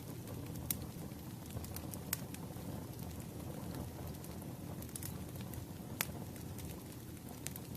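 Wood fire burning: a steady low rumble of flames with irregular sharp crackles and pops from the burning firewood, a few louder snaps among them.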